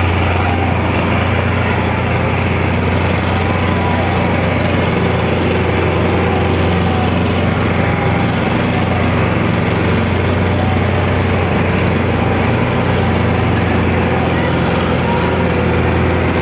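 Sonalika DI 750 tractor's diesel engine running hard and steady under heavy load while pulling a harrow through soil, pouring out black smoke. The engine note holds even, with no revving up or down.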